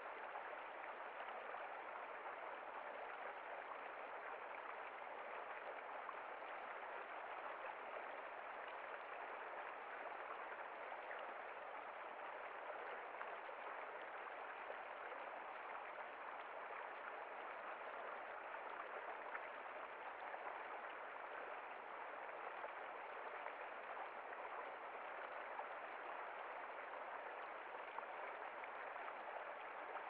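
Shallow stream running steadily over rocks: an even, unbroken rush of water.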